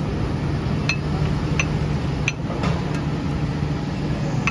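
Heavy construction machinery's diesel engine running steadily, with a few sharp metallic clinks from lifting gear being locked on for a crane lift.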